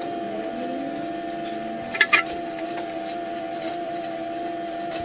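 Two sharp clicks about two seconds in as small rusty metal lamp parts knock on a stone countertop, over a steady high hum.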